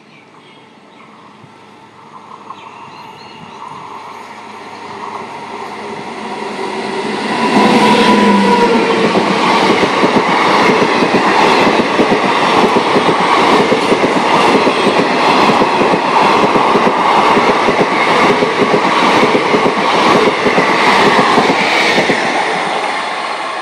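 Passenger train hauled by a WAP-7 electric locomotive, approaching and growing louder, then passing close at speed about eight seconds in. A loud, steady, rapid clickety-clack of wheels over the rails follows as the coaches go by, easing slightly near the end.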